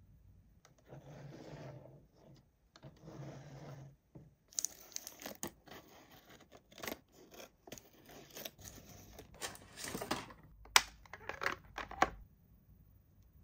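Toy packaging being torn open and handled: two tearing strokes, then a busy run of crinkling, scraping and sharp clicks that stops near the end.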